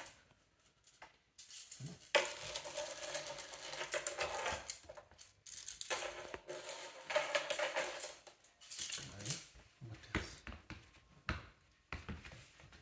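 Plastic baby toy keys rattling and clinking in long spells as a puppy mouths, shakes and tugs at them, with quieter gaps in between.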